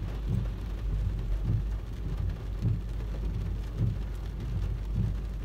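Heavy rain on a car, heard from inside the cabin, over a steady low rumble. Low thumps come about once a second as the windshield wipers sweep.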